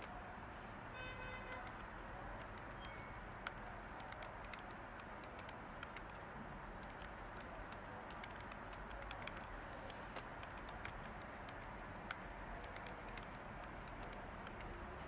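Steady white-noise hiss under sparse, light computer-keyboard keystrokes, single taps a second or more apart.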